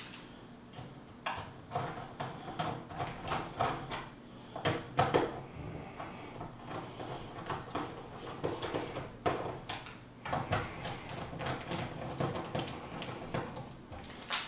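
Small screws being driven by hand with a hand screwdriver through a circuit board into a plastic housing: irregular clicks, taps and short scrapes of the driver and parts being handled.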